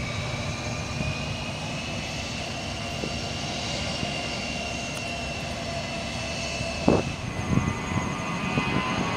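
Airbus A320's IAE V2500 jet engines running hard on the runway: a steady jet noise with a whine that rises in pitch and then levels off. A few sharp thumps come near the end.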